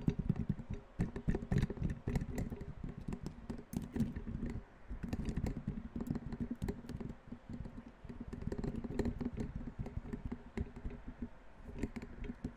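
Fast, irregular tapping: many short knocks and clicks a second with dull, heavy low thuds, running unevenly with brief lulls.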